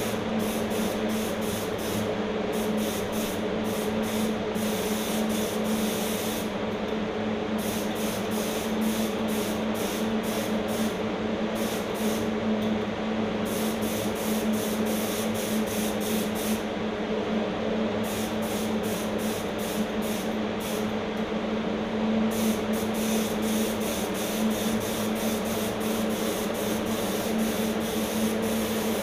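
HVLP paint spray gun hissing steadily as it sprays paint onto an engine, with a steady hum underneath. The highest part of the hiss drops out briefly a few times.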